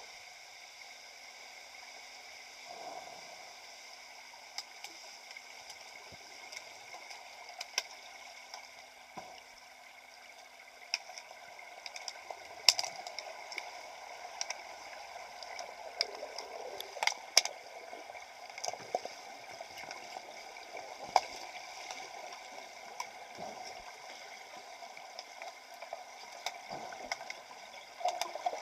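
Underwater pool sound heard from a submerged camera: a steady hiss with gurgling water and scattered sharp clicks and knocks, more frequent after about ten seconds, from underwater hockey sticks and the puck striking the tiled pool floor.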